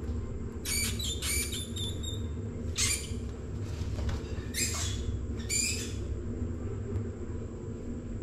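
A mouse squeaking: about six short, high-pitched squeaks in the first six seconds, over a steady low hum.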